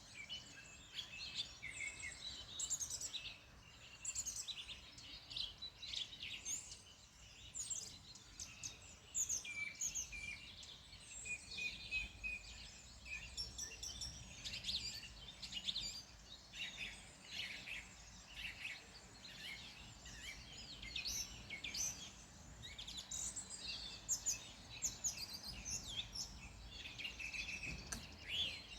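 Several small birds singing and chirping at once, a busy chorus of short high calls and trills, over a faint low background rumble.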